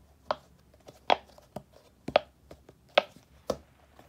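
Silicone push-bubbles of a glow-in-the-dark 3D pop-it ball being pressed in, giving about seven sharp pops at an uneven pace.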